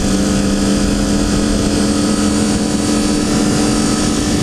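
Triumph Daytona 675's inline three-cylinder engine running at a steady, unchanging speed while riding, with wind rumbling across the microphone.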